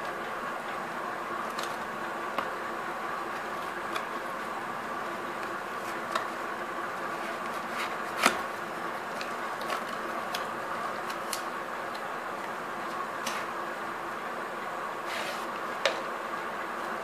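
Small cardboard box being opened by hand: scattered light clicks and taps of the flaps and tabs, the sharpest about eight seconds in, and a brief rustle near the end, over a steady background hum.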